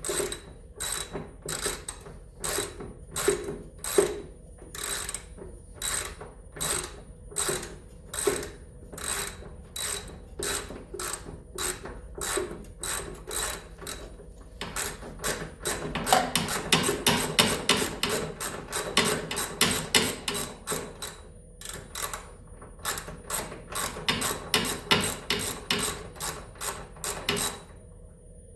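Socket ratchet clicking as it backs out a snowmobile engine mount bolt: steady strokes at first, then quicker, denser runs of clicks past the middle, stopping shortly before the end.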